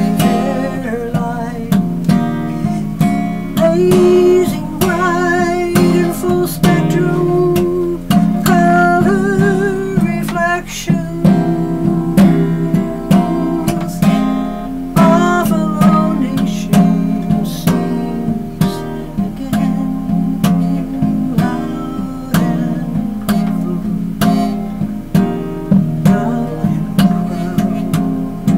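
Acoustic guitar strummed steadily while a woman sings folk-style phrases over it, holding long notes with vibrato.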